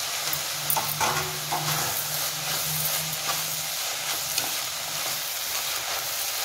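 Slotted steel spatula stirring and scraping moringa leaf stir-fry around a kadai, with a steady sizzle of the food frying over the heat. A few sharp scrapes and clinks of the spatula on the pan come about a second in.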